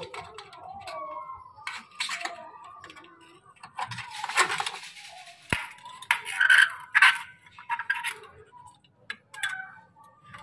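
Scattered light clicks and taps of a thin wire being worked through the gap of a window frame and against the glass. A few brief voice-like sounds stand out about four seconds in and again around six to seven seconds in.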